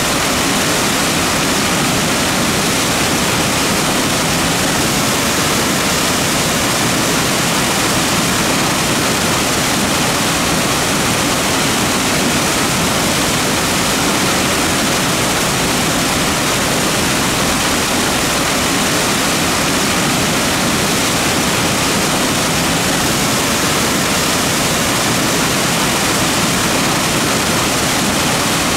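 Mountain creek water running steadily, an even, continuous rush of flowing water.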